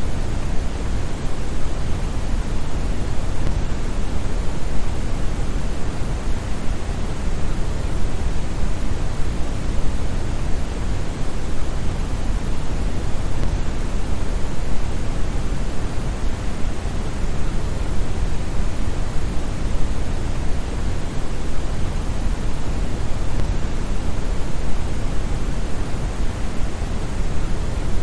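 Steady, continuous brown noise: a synthetic deep rushing hiss, strongest in the bass and falling off toward the highs, unchanging throughout.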